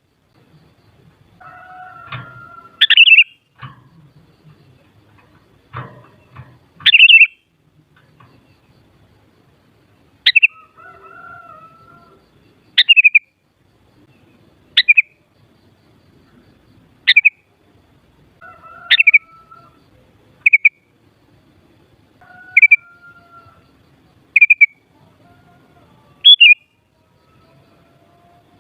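Sooty-headed bulbul calling: short, loud, sharp chirps repeated about every two seconds, with softer, lower call notes between them.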